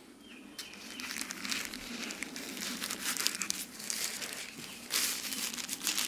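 Thin tissue paper crinkling and rustling as hands unwrap a flashlight from it: irregular crackles, louder about five seconds in.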